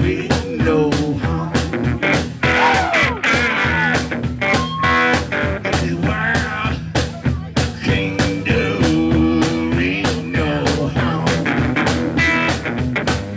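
A blues-rock trio playing an instrumental passage live: a drum kit keeping a steady beat, an electric guitar, and a harmonica played into a cupped handheld microphone, its notes bending up and down.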